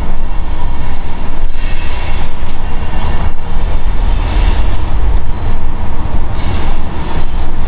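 Wind buffeting the camera's microphone: a loud, steady low rumble with a rushing noise over it.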